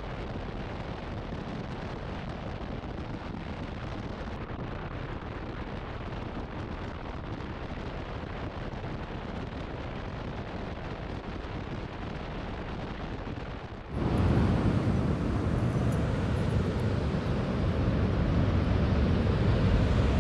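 Steady wind rush and road noise of a Subaru WRX hatchback driving along the highway, heard from a camera mounted on the outside of the car. About fourteen seconds in it cuts abruptly to louder ocean surf breaking on a beach, with wind on the microphone.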